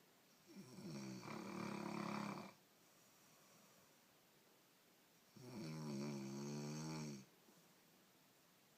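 A person snoring in their sleep: two long snores of about two seconds each, the first about half a second in and the second about five seconds in.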